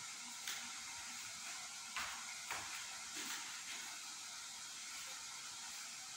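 Beef cooking in sauce in a covered pan: a steady sizzling hiss, with a few soft pops and clicks in the first half.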